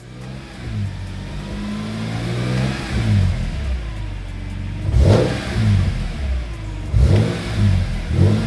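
Car engine being revved in repeated blips, its pitch climbing and falling, with sharp surges about two-thirds of the way in and again near the end.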